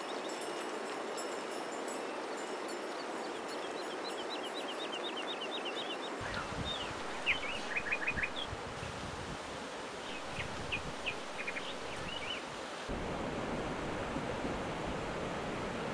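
Birds chirping over a steady rushing outdoor background. A run of quick repeated chirps comes in the first few seconds, then sharper single calls and short trills between about seven and twelve seconds, while a deeper rumble joins the background about six seconds in.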